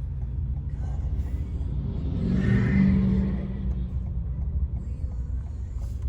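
Car driving, heard from inside the cabin: a steady low rumble of road and engine noise that swells for about a second and a half near the middle, with a brief hum in it.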